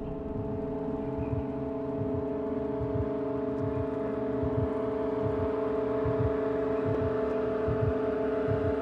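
Suspense soundtrack music: a sustained low drone chord that slowly swells, over soft low thumps about twice a second.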